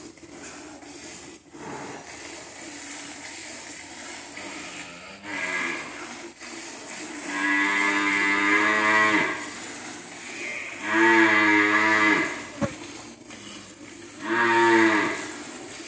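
Water buffalo lowing: four deep calls, the second and third the longest and loudest at about two seconds each. A single sharp click falls between the third and fourth calls.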